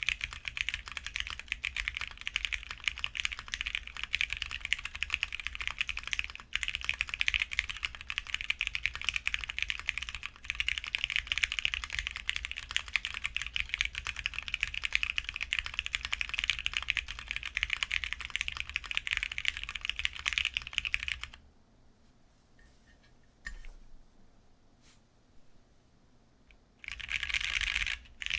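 Fast, continuous typing on a CannonKeys Bakeneko60 aluminium 60% mechanical keyboard with stock, unlubed Akko CS Jelly Black linear switches, an FR4 plate and doubleshot PBT keycaps. About three-quarters of the way in the typing stops, leaving only a few single keystrokes, and it starts again near the end.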